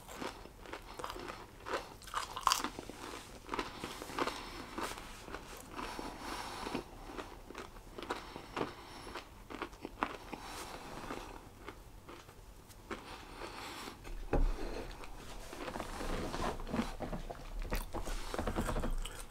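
A person chewing a crisp-coated chicken chunk close to the microphone, with irregular crunches throughout.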